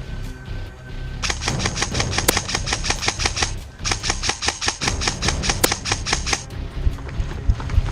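Airsoft gun firing two long full-auto bursts of rapid, evenly spaced snapping shots, with a short pause between them.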